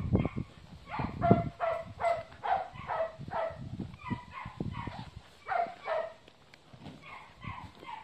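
A dog barking over and over in short barks, about two a second, getting fainter in the last couple of seconds. Low rumbling knocks sound in the first second or so.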